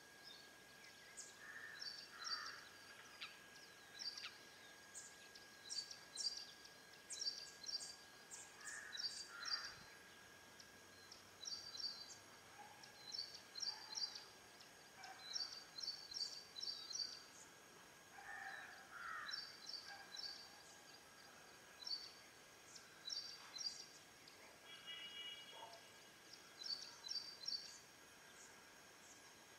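Faint bird chirps: short high-pitched calls in quick clusters, repeating every second or two, with a few lower calls now and then, over a faint steady tone.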